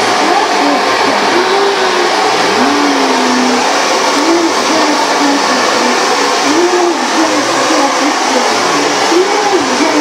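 Hand-held hair dryer running with a steady blowing whir. A wavering pitched sound rises and falls over it several times.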